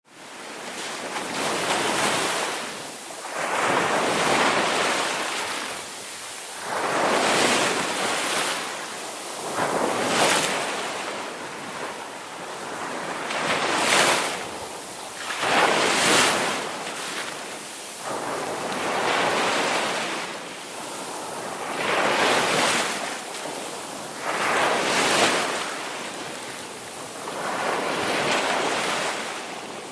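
Ocean surf: waves break and wash in one after another, each surge swelling and falling away every two to three seconds.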